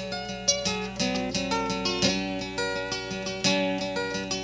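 Guitar playing an instrumental break in a song, a quick run of plucked notes that ring on, with a few notes sliding in pitch.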